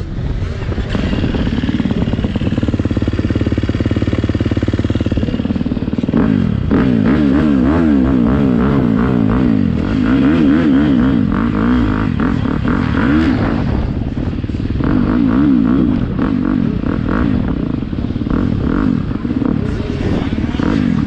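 Motocross bike engine ticking over at idle, then the revs rise and fall again and again as the bike is ridden off at low speed.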